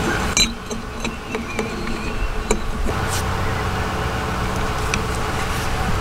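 A steady mechanical drone runs throughout, with a few light clicks and taps of the Espar diesel heater's metal parts being handled and fitted together.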